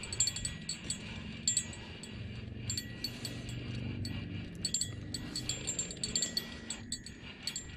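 A small bell clipped to the fishing rod jingles in quick, irregular tinkles as the rod bends and bounces while a catfish is fought on the line, over a low steady hum.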